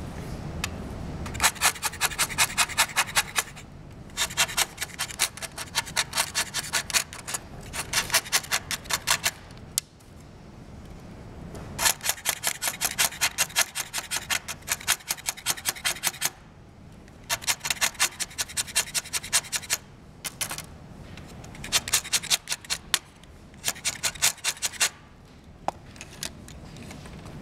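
Blue chalk pastel stick scraped against a utility knife blade, grinding it into powder: rapid rasping strokes, several a second, in runs of a few seconds with short pauses between.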